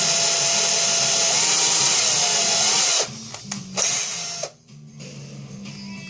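Power drill running as its bit drills out the rivet of a die-cast toy car, a steady motor whine with hiss that stops suddenly about three seconds in, followed by two short bursts of the drill. The bit is dull, so it is slow to cut.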